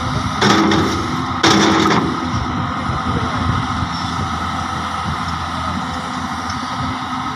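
Large Hyundai hydraulic excavator's diesel engine running steadily under work, with two short loud noisy bursts about half a second long each, about half a second and a second and a half in.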